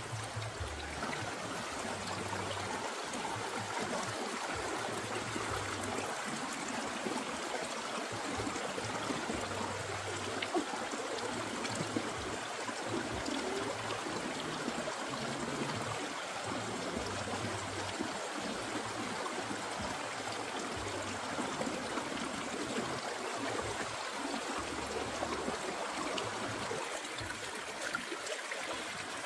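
Shallow stream running over rocks, a steady trickling and gurgling of water.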